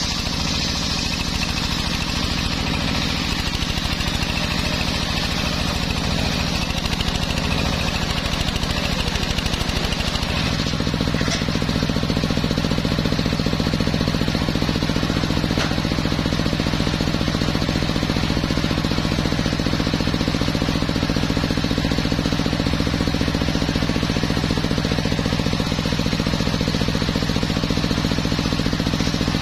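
Homemade circular sawmill running steadily as it saws teak, with the engine's hum and the spinning blade. About ten seconds in, the sound turns fuller and steadier.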